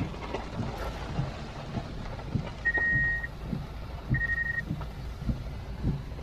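Cabin noise of a BMW 550i GT driving on a wet road: a steady low rumble with a soft thump about every half second. Two electronic beeps a second and a half apart near the middle.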